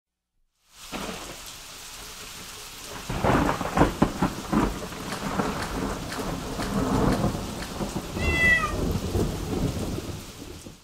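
Rain falling with thunder rumbling from about three seconds in, and a single cat meow, falling in pitch, a little after eight seconds.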